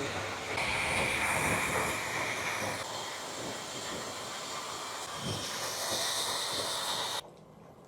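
Hair dryer blowing pet fur dry while the fur is brushed out: a steady airy hiss whose whine shifts higher partway through, then cuts off suddenly about seven seconds in.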